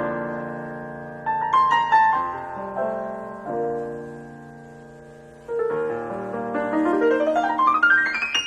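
Roland EP-7 digital piano playing a piano voice: chords struck and left to ring and fade, fresh chords about a second and five and a half seconds in, then a fast rising run up the keyboard near the end.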